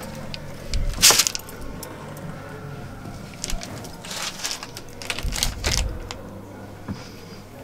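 Handling and movement noises inside a truck cab: a few sharp clicks and knocks, the sharpest about a second in and around four seconds in, and low thuds around five to six seconds in.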